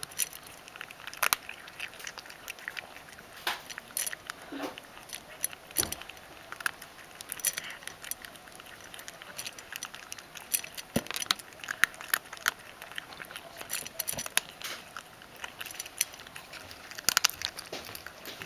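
A ragdoll cat eating dry kibble, crunching it noisily: a run of irregular crisp crunches and clicks.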